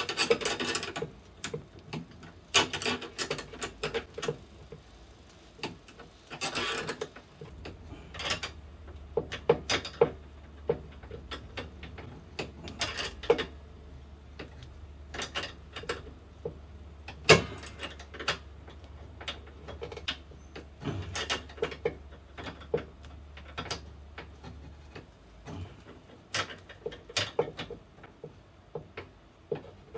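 Irregular clicks, knocks and short scrapes of hand work on a table saw's rip fence lock lever, fitting parts onto an M6 threaded rod passed through it. A low hum comes in about seven seconds in and stops about five seconds before the end.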